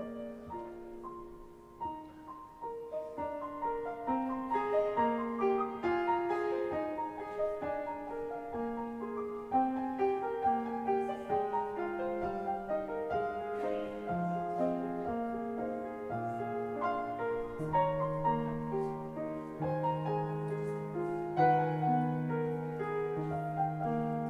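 Solo piano playing a gentle instrumental piece, melody over chords, with low bass notes held through the last few seconds.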